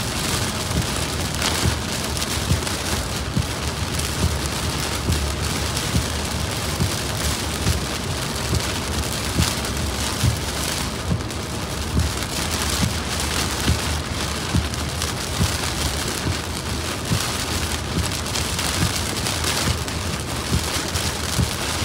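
Heavy rain striking a moving car, a dense patter of irregular drop hits over a steady low rumble of road and tyre noise.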